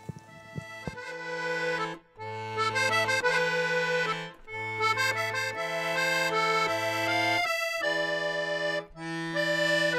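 Accordion music: sustained chords over bass notes that switch back and forth between two pitches, starting about a second in and pausing briefly between phrases.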